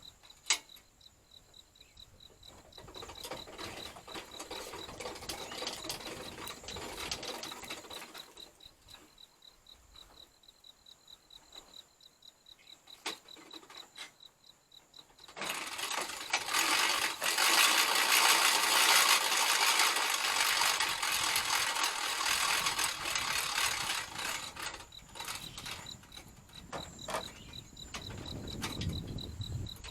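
Hand winch on a truck bed crane being worked, its ratchet pawl clicking, in a stretch of a few seconds and then a louder longer stretch about halfway through. Crickets chirp steadily throughout.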